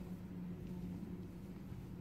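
Quiet room tone with a faint, steady low hum.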